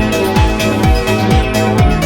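Electronic dance music played from a vinyl record: a steady kick drum about twice a second under sustained synthesizer chords.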